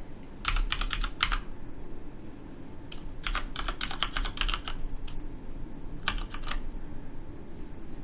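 Typing on a computer keyboard: three short runs of key clicks, about a second in, around three to four seconds in, and near six seconds, with pauses between.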